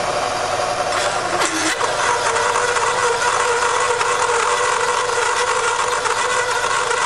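Hole saw in a milling machine spindle cutting into a thick metal plate: a steady machine sound with a high, ringing cutting tone that grows stronger about two seconds in as the saw bites.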